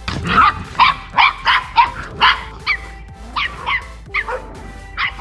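Miniature Australian Cattle Dog barking in a rapid run of short, high yaps, about a dozen in all, two to three a second.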